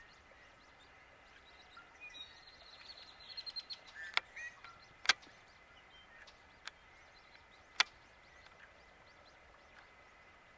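Scattered wild bird calls, with a short rapid trill a few seconds in, and three sharp clicks in the middle that are the loudest sounds.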